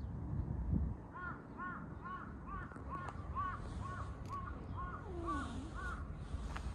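A bird calling in a quick run of about a dozen short, rising-and-falling notes, roughly three a second, starting about a second in and stopping near the end.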